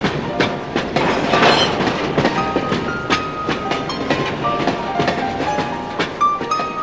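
A train rolling, a steady rumble with irregular clicks of wheels over rail joints. Piano notes come in over it a little over two seconds in.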